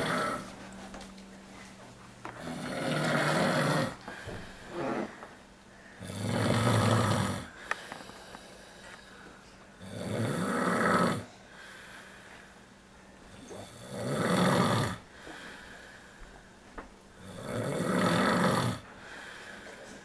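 A sleeping man snoring: five long snores, about one every four seconds, each lasting a second or more, with softer breaths between them.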